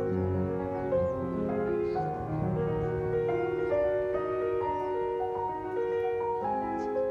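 Slow piano music with sustained notes.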